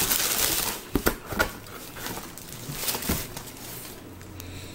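Plastic packing wrap crinkling as a hand digs into a cardboard box, then a few separate knocks and bumps as a heavy book is lifted out.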